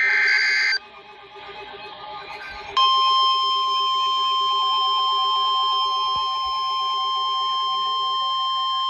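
The last of the NOAA Weather Radio SAME header data bursts, a shrill warbling digital screech lasting under a second, then a short pause. About three seconds in, the NWR 1050 Hz warning alarm tone starts and holds steady as a loud, single-pitched beep, signalling that a warning follows.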